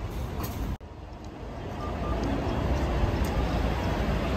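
Busy street ambience: a low vehicle engine rumble building gradually, with scattered voices. The sound cuts off abruptly and restarts about a second in.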